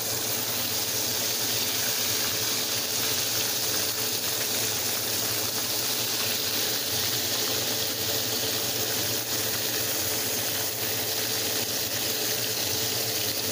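Breaded chicken breast fillets sizzling steadily in hot frying oil in a pan.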